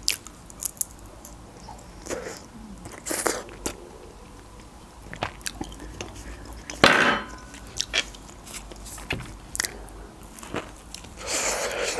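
Close-miked eating: wet chewing and mouth clicks as a cherry tomato is eaten, then bites into a slice of quiche with shortcrust pastry, with louder crunches about seven seconds in and near the end.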